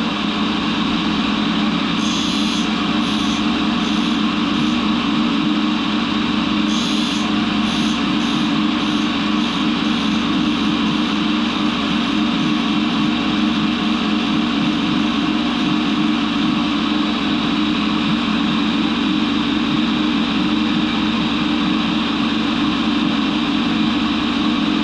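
Monarch 10EE lathe running steadily. Two short runs of faint high ticks come about two seconds in and again about seven seconds in, each fading out.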